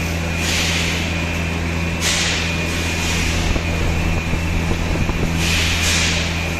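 Fully automatic shrink-wrap packing machine running: a steady low electric hum with a thin high whine, broken three times by short bursts of hissing air.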